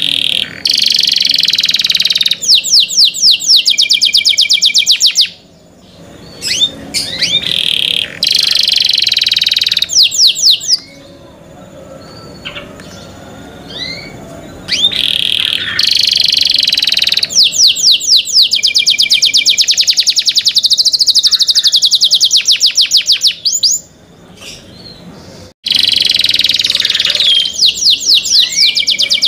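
Domestic canary singing long phrases of rapid trills and rolling notes. It breaks off about three times, once for several seconds of soft, scattered chirps.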